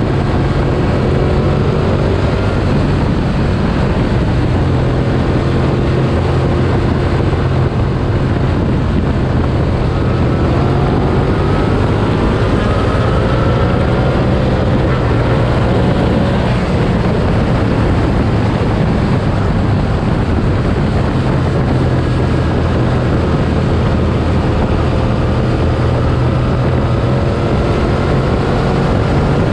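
Motorcycle engine running under way over a steady rush of wind, its pitch climbing slowly as the bike accelerates, once about ten seconds in and again in the last third.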